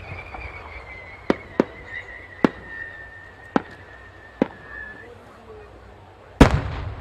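Firework rockets: a long whistle that slowly falls in pitch and stops about five seconds in, with five sharp cracks over it, then a loud boom near the end that rolls on.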